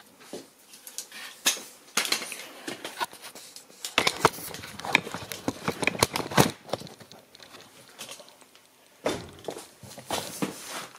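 Irregular plastic clicks, knocks and rustling from hands working wiring-harness connectors and their locking tabs in a car engine bay, busiest in the middle of the stretch.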